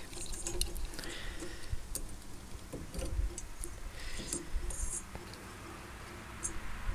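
Light scattered clicks and rattles of small metal parts being handled: meter test probes being moved and placed on an amplifier's output transistor leads.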